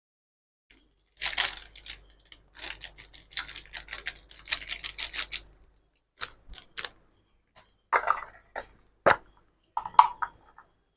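Pepper powder being shaken and tapped out of its container into the curry pan: bursts of quick rasping clicks, then four or five separate sharp knocks in the second half.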